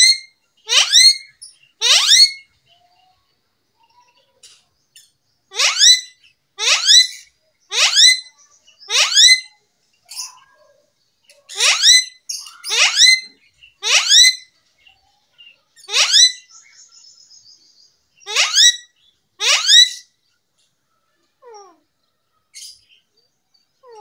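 Ring-necked parrot calling loudly: short rising calls about one a second, in runs of two to four with pauses between, dying away to a few faint sounds near the end.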